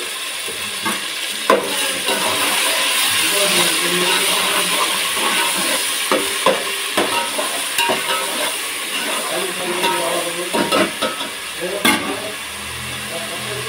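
Onions and ginger-garlic paste frying in hot oil in a pot, sizzling steadily while a spoon stirs, with frequent clicks and scrapes against the pot. A low hum comes in near the end.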